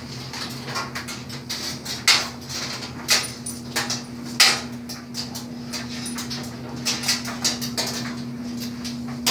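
A dog sniffing in short, irregular bursts, several loud ones among softer ones, over a steady low hum.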